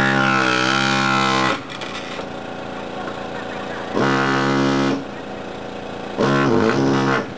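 GPW-4500 pneumatic air hammer, rated at 4500 blows a minute, chipping ceramic tiles loose. It runs in three bursts of one to one and a half seconds, a pitched mechanical drone that starts and stops abruptly as the trigger is pressed and let go.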